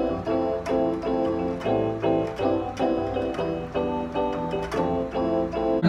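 Portable electronic keyboard played in a steady rhythm of repeated chords, about three a second, with lower bass notes that change every second or two.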